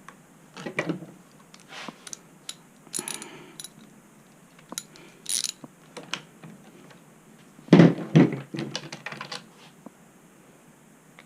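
Hand tools and metal parts clicking, rattling and knocking during reassembly after a tire swap, with a quick run of ringing metallic clicks about three seconds in and the loudest pair of knocks about eight seconds in.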